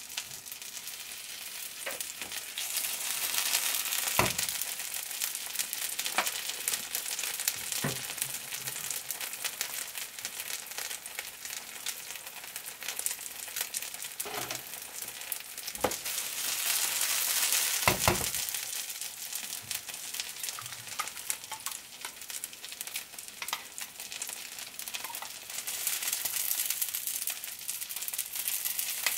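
Seafood green onion pancake batter frying in oil in a nonstick pan: a steady crackling sizzle that swells now and then, with cooking oil freshly drizzled around its edges. Several short, sharp knocks are scattered through.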